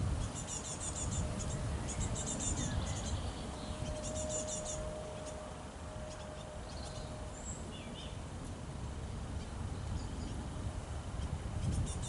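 Small birds chirping and calling around a garden-style feeder, with high, rapid trills in the first few seconds, over a low rumble of wind on the microphone.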